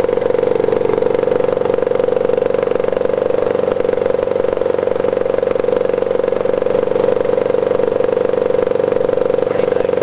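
British Seagull two-stroke outboard motor running steadily at constant throttle. It is pushing the boat upstream against a fast current.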